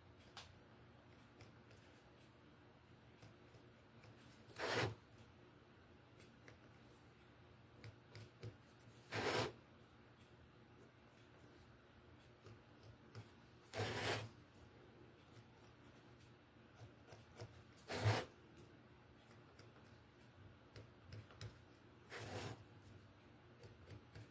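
Five short scratching rubs about four to five seconds apart, over a faint steady background. They come from hand work on a round wooden bowl blank: pencil marks on its edge, and the blank being turned on the wooden bench.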